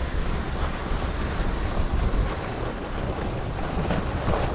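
Wind buffeting the microphone of a skier moving downhill, a steady low rumble, with the hiss of skis sliding over packed snow.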